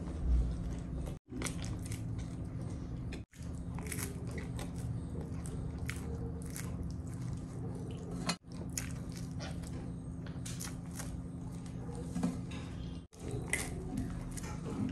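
A person biting into and chewing a slice of pan-baked margherita pizza: a string of short, sharp crunching and chewing sounds over a steady low hum.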